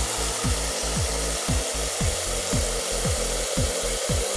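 Steady hiss of water spraying down from an overhead car-wash nozzle bar, over background music with a low beat about twice a second.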